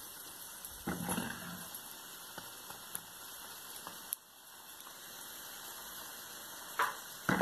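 Bolinhos de chuva (dough balls) deep-frying in hot oil in a pan: a steady, soft sizzle. It drops out suddenly about four seconds in and gradually comes back.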